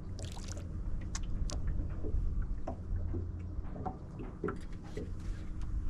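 Steady low rumble of a small fishing boat on the water, with scattered light clicks and knocks on board.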